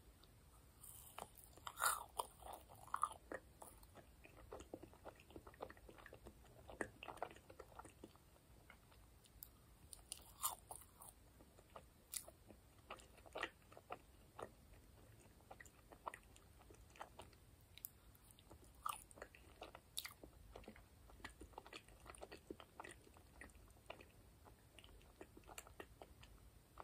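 Close-miked biting and chewing of a plain marshmallow: wet mouth clicks and smacks, loudest about two seconds in, then scattered chewing clicks.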